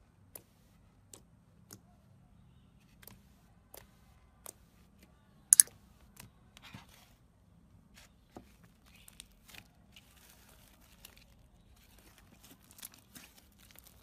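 Fingertips poking and pressing into glossy clear slime, making sharp little clicks and pops about once a second, with one much louder pop about halfway through. Later comes a softer crackling as the slime is pressed and folded.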